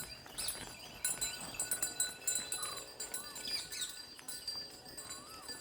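Small birds chirping and calling: many short high chirps with a few brief whistled, curving notes.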